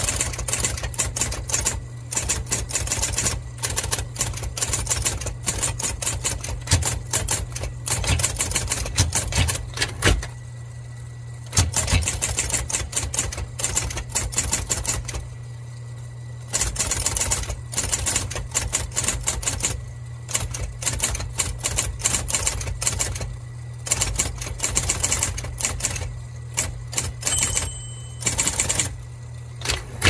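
Late-1960s IBM Model D electric typewriter typing at a steady pace, a fast run of sharp key strikes broken by a couple of short pauses. The motor hums steadily underneath.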